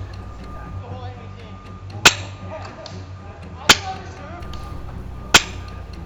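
Three single shots from an HPA airsoft rifle, sharp loud cracks about a second and a half apart.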